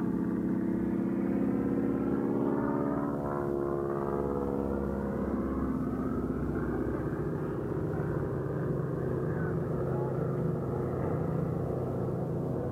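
Propeller aircraft engine droning overhead as an aerobatic plane flies loops. The drone is steady, with a sweeping, phasing shift in its tone from about three to six seconds in as the plane passes.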